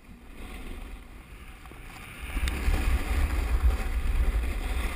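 Wind buffeting the body-mounted camera's microphone during a downhill run on a groomed ski slope, a low rumble with the hiss of sliding over packed snow. It grows louder about two seconds in as speed picks up.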